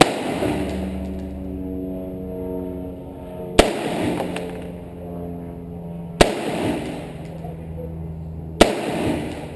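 Four single gunshots about two and a half seconds apart, each a sharp crack followed by a short echo: slow, aimed fire at a shooting range.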